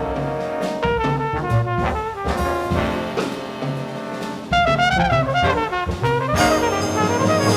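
Big band jazz with the brass section to the fore over drums and rhythm section. The band swells about four and a half seconds in, and near the end the full ensemble comes in together with crashing cymbals.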